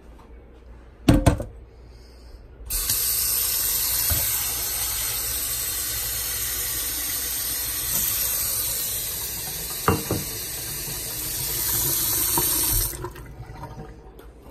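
Kitchen faucet running into a stainless steel sink, filling a ceramic dog bowl with water for about ten seconds, then shut off abruptly. A sharp knock comes about a second in, before the water starts.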